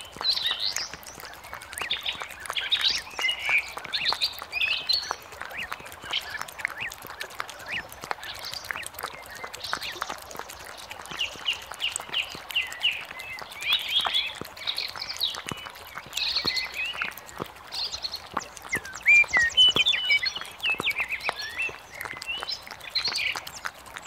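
Small songbirds chirping and trilling in short phrases, loudest about three quarters of the way through, over a steady run of short clicks from a European hedgehog chewing its food in the grass.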